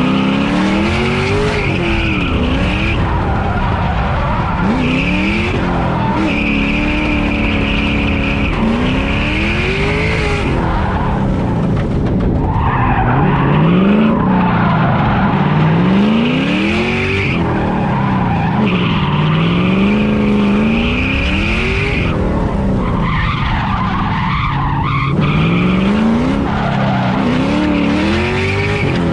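Drift car's engine revving hard up and down again and again through a drift run, about one rise and fall every two to three seconds, with long stretches of tire squeal over it, heard from inside the cabin.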